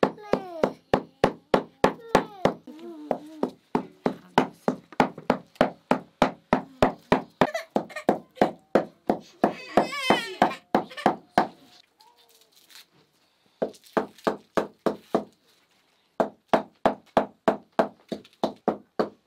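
Knife chopping on a wooden cutting board in an even rhythm of about three strokes a second, with a couple of short pauses after the middle. A small child's high voice sounds at the start and again about halfway through.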